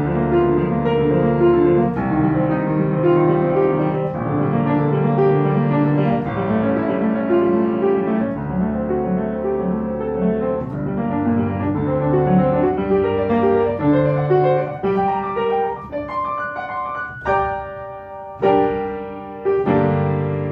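Piano playing a quick run of notes, then closing with three loud, separate chords in the last few seconds, each left ringing as it fades.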